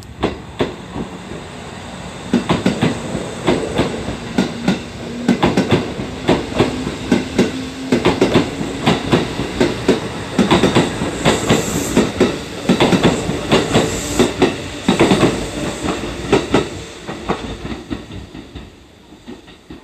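Electric commuter train running past along a station platform, its wheels clattering over the rail joints in quick clicks over a steady rumble. The clicks build up and then fade toward the end.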